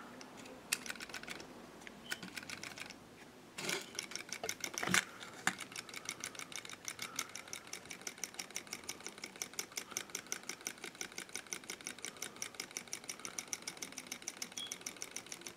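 Small battery-powered walking toy puppy's mechanism clicking rapidly and evenly as it walks, about six ticks a second from about five seconds in, after a few scattered handling knocks.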